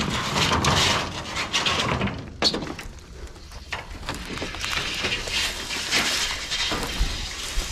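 Rusty corrugated tin sheets and old weathered boards being lifted and shifted by hand over dry grass: metal scraping and rattling and wood clattering, with one sharp knock about two and a half seconds in.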